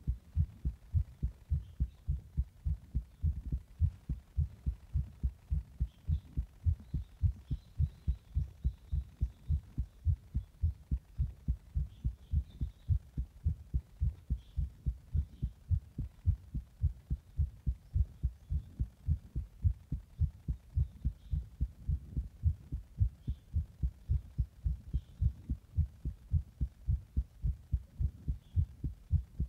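A human heartbeat, a steady run of regular low lub-dub thumps, after the person has drunk an energy drink.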